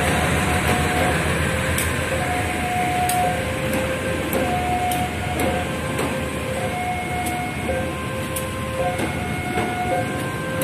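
Electric commuter train rolling slowly past, with a low rumble and irregular clicks as its wheels cross rail joints. Over it, a level-crossing warning alarm sounds two tones that take turns, each held for about half a second to a second.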